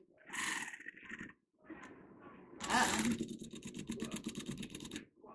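Electric carving knife running as it saws through a pumpkin's shell, in two runs with a pause between. The second run gets louder partway through, has a fast, even buzz, and cuts off just before the end.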